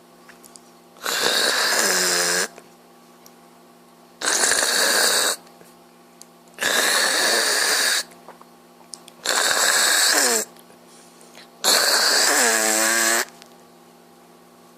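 A sleeping man snoring: five long snores, one about every two and a half seconds, several ending on a brief pitched tone that bends in pitch.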